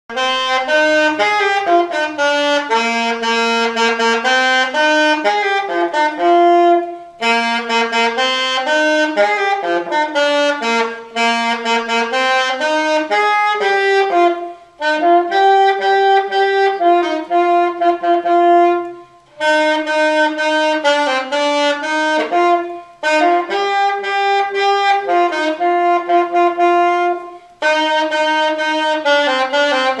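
Alto saxophone playing an unaccompanied melody, one note at a time, in phrases of a few seconds each broken by short pauses for breath.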